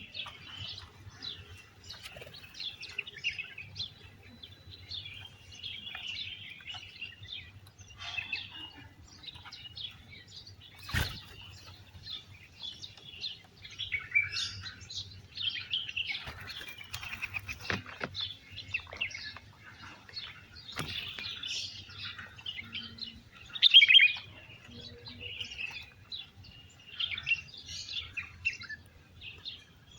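A flock of small wild birds chirping and tweeting, many short overlapping calls without a break. A few sharp taps sound here and there, and a louder burst of chirping comes late on.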